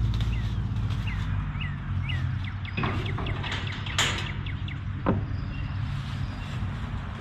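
A small bird chirping repeatedly in short downward-sweeping notes over a low steady hum that fades after about two seconds. Three sharp knocks follow, about a second apart.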